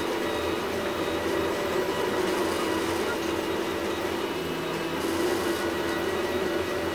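MendelMax 3D printer running mid-print, its stepper motors driving the hot end and bed with a steady hum of several held tones.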